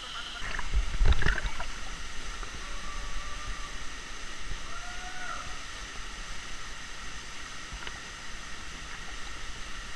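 Small waterfall pouring into a canyon pool: a steady rush of water, with a loud thump about a second in.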